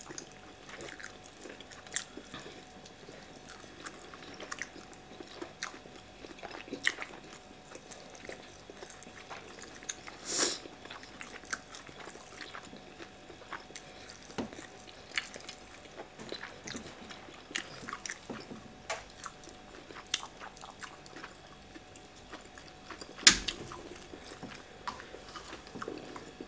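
Close-miked eating sounds of two people eating fufu, okra soup and grilled mackerel by hand: quiet chewing with many small scattered clicks. A sharper click stands out about ten seconds in and another near the end.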